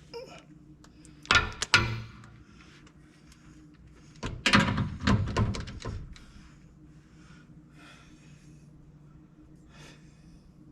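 Hard metallic knocks and clatter from hand tools and parts being handled during work on a pickup's front bumper: a few sharp knocks about a second and a half in, then a longer rattling clatter a little later, over a faint steady hum.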